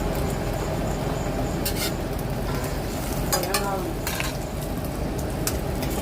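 Metal spatula scraping and clinking on a tawa (flat iron griddle) a few times, the longest scrape with a brief ringing in the middle, over a steady low rumble, as a lachha paratha is cooked.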